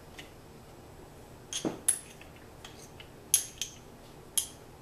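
A metal spoon clinking against a small ceramic bowl as garlic cloves and ginger are spooned into a food processor bowl: a few sharp clinks, two together about a second and a half in, two more around three and a half seconds, and one near the end.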